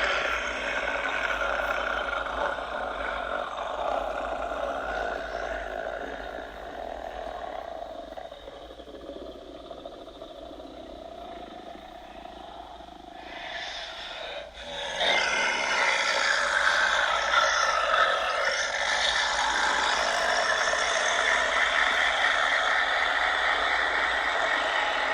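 Demonic laughter sound effect: a distorted, growling, roar-like voice layered into a dense wall of sound. It sinks lower through the middle and surges back louder about fifteen seconds in.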